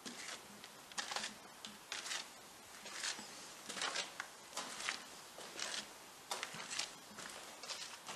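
Slow footsteps, about one step a second, each a short scuffing sound.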